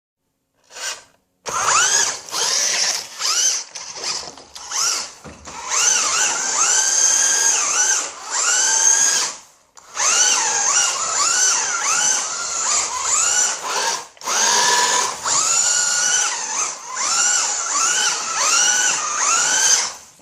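Electric motor of a remote control car whining in repeated throttle bursts, each rising in pitch and then holding, with short pauses between. The car is drifting on rear drive wheels wrapped in sellotape to cut their grip.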